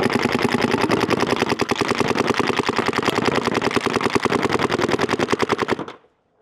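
DLX Luxe IDOL electronic paintball marker firing in a rapid, evenly spaced stream, about a dozen shots a second. The firing cuts off abruptly near the end.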